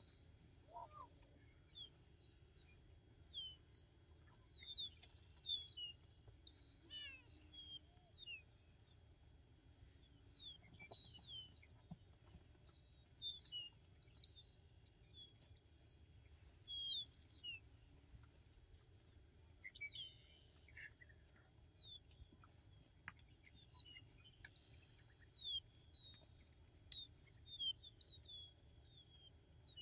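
Prairie songbirds singing and chirping in short high phrases, with two louder buzzy trills. A faint low hoot from a booming male Attwater's prairie-chicken sits beneath them about a second in and again around seven seconds.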